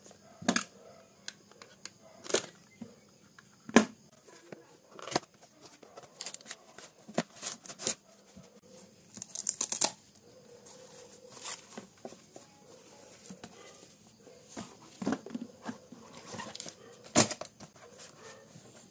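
Unboxing handling noises: a cardboard box and a cloth pencil roll handled on a wooden table, with scattered knocks, taps and scraping, and a short scratchy tearing run about nine to ten seconds in.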